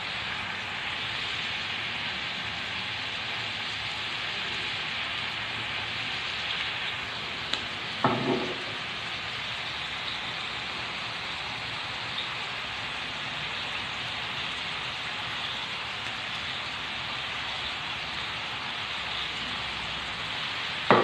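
Vegetables and chicken sizzling in a frying pan, a steady hiss. Brief knocks stand out about eight seconds in and again at the end.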